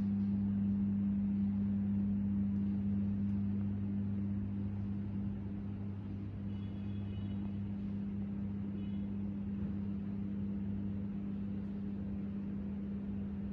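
Motorised lift screens of a paperless conference table folding down into the tabletop: a steady low electric motor hum, with a faint higher whine about six to seven seconds in.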